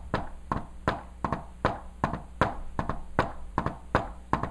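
Hand taps tapping out a heart-sound rhythm: about three sharp taps a second, every other one louder. The rhythm imitates an S4 gallop (S4–S1–S2, the "Tennessee" cadence), the extra sound of an atrium contracting against a stiff, hypertrophied left ventricle.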